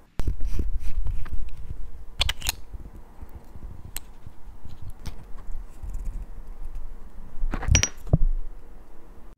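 Close-up handling of a steel watch case as its caseback is taken off: low rubbing of fingers on the case with a few sharp metal clicks, two a couple of seconds in, one about four seconds in and a quick cluster near the end.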